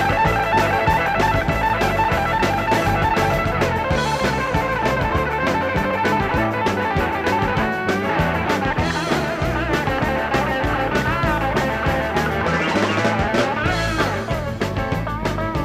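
Rock band instrumental break: electric guitars over a drum kit beat, the lead guitar playing wavering, bending notes in the second half.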